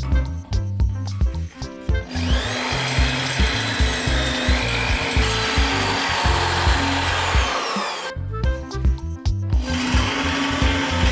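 A power tool running on a workpiece, in two runs: the first starts about two seconds in and winds down with a falling whine near eight seconds, the second starts again about a second and a half later. Background music with a steady beat plays underneath.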